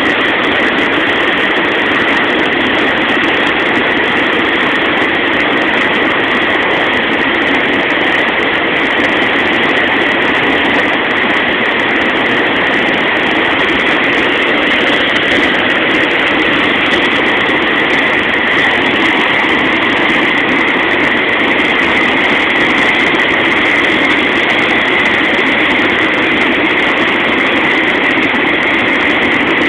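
Muddy floodwater rushing and churning in a swollen river torrent, a loud steady rush with no let-up.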